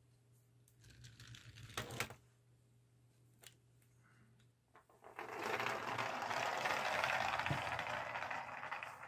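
3D-printed plastic clockwork car: brief clicking as it is wound by hand, then from about five seconds in a loud, fast, dense rattling whir of its plastic gear train as the spring unwinds and the car runs across a wooden floor, stopping suddenly near the end.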